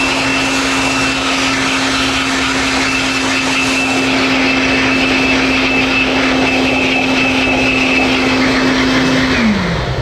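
Handheld air blower running steadily with a constant whine over the rush of air, blowing water off a motorcycle's drive chain. It is switched off near the end and its pitch falls as the motor winds down.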